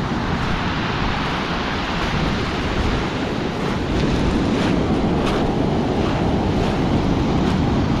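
Rough Black Sea surf in a storm, breaking and washing up over a pebble beach in a steady rush, with a few sharp clicks in the second half.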